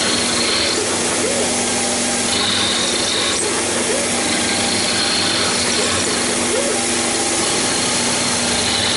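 Taig CNC mill's spindle running steadily while an end mill cuts a pocket into a cast iron workpiece, with a steady hum and an even hiss throughout.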